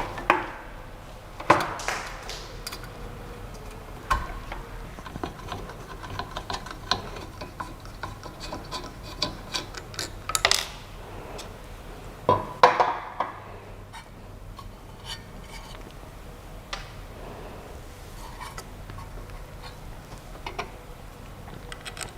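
Irregular clicks, taps and light clattering from hands working on a small desktop 3D printer/CNC machine, with a few sharper knocks, over a faint steady hum.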